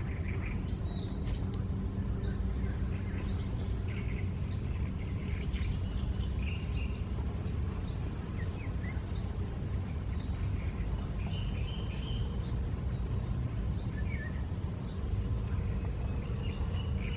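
Small birds chirping and calling in short, scattered phrases throughout, over a steady low rumble.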